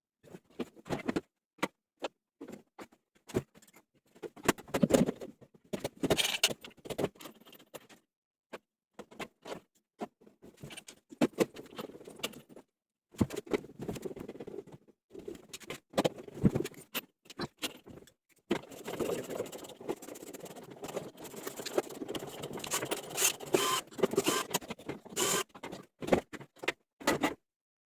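Irregular clicks, knocks and scrapes of tools and parts being handled while a washing machine is worked on, with a longer stretch of continuous scraping and rustling about two-thirds of the way through.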